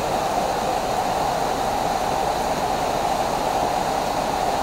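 Steady rain falling, a continuous even hiss of drops.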